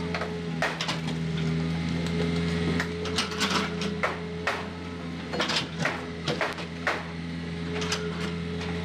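Volvo compact wheeled excavator's diesel engine running steadily while it works, with a string of sharp, irregular knocks and clunks as the bucket and arm move the dirt.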